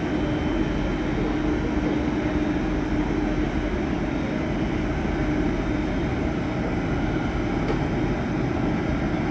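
CRRC Zhuzhou electric hybrid locomotive running steadily with an even machine hum and one constant droning tone, with no change in pitch or level.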